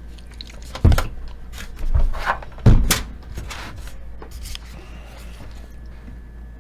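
Several short knocks and clicks from parts being handled inside a desktop PC case, a cluster of them about two to three seconds in, then only faint rustling.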